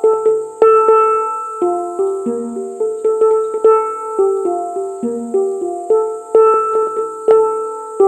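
Background music: a melody of sharply struck, ringing pitched notes that fade after each strike, played at an even pace in a repeating pattern.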